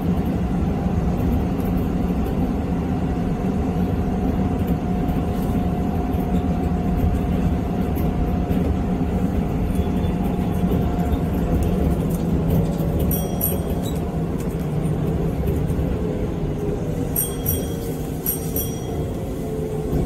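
Electric commuter train running on the rails, heard from inside the car: a steady low rumble with a motor whine that falls slowly in pitch over the second half as the train slows for the next station. Level-crossing warning bells ring briefly twice as the train passes crossings.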